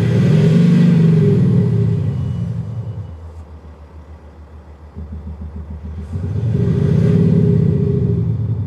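Mercedes GLS X167 with a Panthera LEO MAGNA Sound Booster active-sound speaker, giving a deep, synthesised exhaust rumble that follows the engine revs. It is revved at the start, falls back to a quiet idle, then is revved again about six seconds in and eases off near the end.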